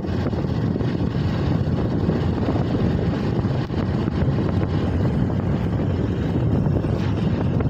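Steady rumbling wind buffeting the microphone along with road noise from a moving vehicle.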